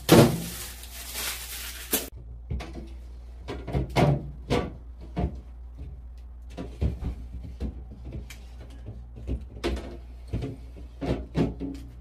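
Plastic door bins and shelves of a refrigerator being handled and slotted into place: a string of irregular plastic knocks and clicks, the loudest right at the start.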